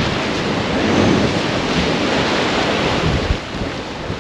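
Ocean waves surging against the shore in a steady wash of noise that swells and eases, with wind buffeting the microphone.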